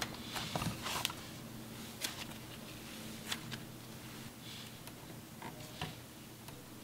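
Cloud slime being stretched and folded by hand, giving faint, scattered soft crackles and a few small clicks over a faint low hum.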